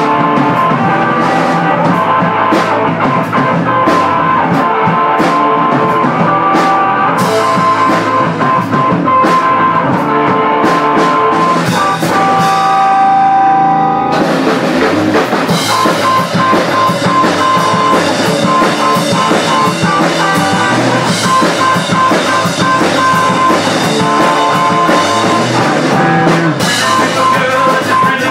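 Rock band playing live: electric guitar over a drum kit with cymbals. About twelve seconds in the drums drop back for a couple of seconds, leaving held guitar notes, then the full band comes back in.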